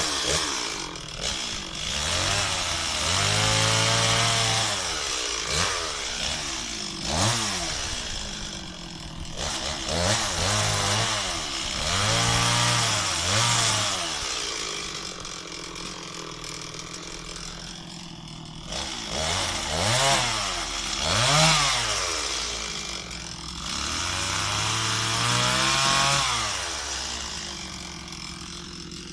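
Stihl MS 260 two-stroke chainsaw running, its engine revved up and dropping back again and again.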